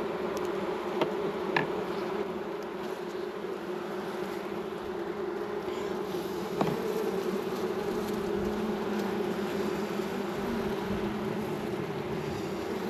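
Honey bees buzzing around an open hive during a frame-by-frame inspection, a steady hum. A few light clicks sound over it, the loudest about a second and a half in and just past the middle.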